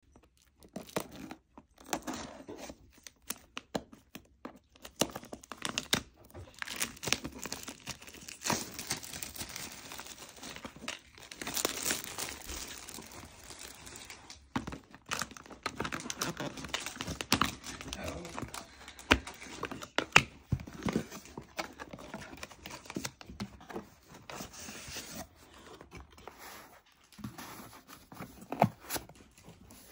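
Clear plastic shrink-wrap being snipped with scissors, then torn and crinkled off a cardboard gift box, with irregular rustles and sharp clicks and knocks of the box being handled and opened.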